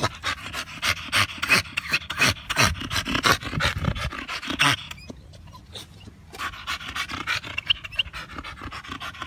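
Staffordshire bull terrier panting hard and fast in quick, even breaths, pausing briefly about five seconds in before panting on.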